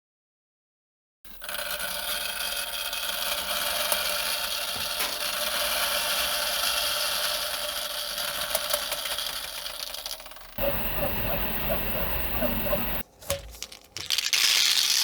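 3D printer running, starting about a second in with a steady whine of several fixed motor tones; the sound changes about ten seconds in. Near the end come rattling clicks, then the rushing hiss of small balls pouring through the gyroid infill of a 3D-printed rainstick.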